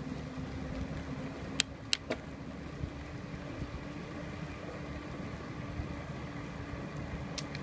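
Bicycle rolling along a brick-paver path, heard from a handlebar-mounted phone: a steady low rumble and hum, with three sharp clicks about one and a half to two seconds in and another near the end.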